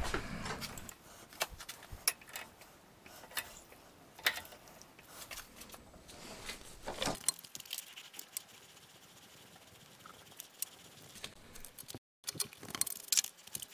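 Faint, scattered metallic clicks and ticks of an M5 tap being worked by hand in the chuck to cut threads in a steel part.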